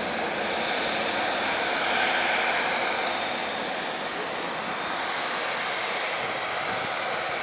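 Boeing 787-8 Dreamliner's GE GEnx-1B turbofan engines running at low taxi power: a steady rush of jet noise with a whine on top, swelling slightly about two seconds in.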